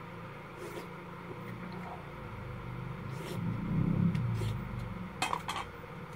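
Hot soup tasted off a wooden spoon: a few short slurping and lip-smacking clicks about five seconds in, over a steady low hum that swells around four seconds.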